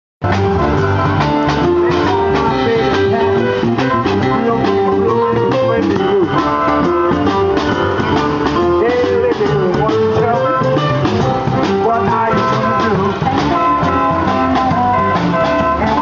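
Live band playing from a moving flatbed truck: saxophone, electric keyboard, guitar and drum kit, with a steady drum beat under held melodic lines.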